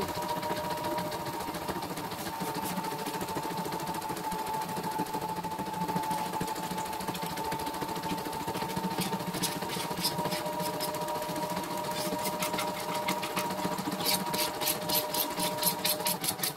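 CNY E960 computerized embroidery machine stitching, its steady hum carrying the rapid, even ticking of the needle strokes. The ticking grows louder and sharper in the last couple of seconds.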